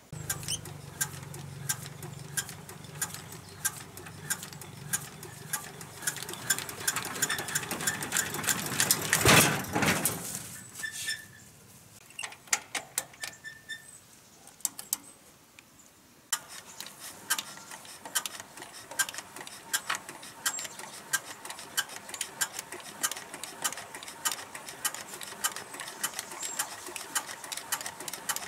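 Small water-pump motor running with a rapid rattling clatter and a loud rush about nine seconds in; it drops away from about eleven to sixteen seconds, then runs steadily again.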